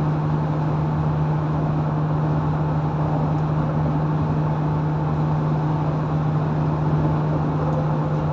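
Cabin noise of a car driving at highway speed: a steady engine and road drone with a constant low hum, unchanging throughout.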